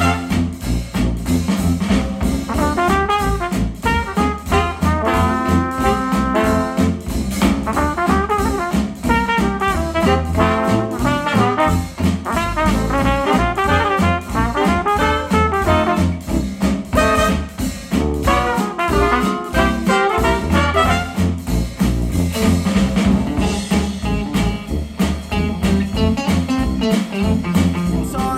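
Retro acoustic jazz with trumpet and trombone lines over a steady beat, played back through ELAC Debut Reference DBR-62 bookshelf speakers.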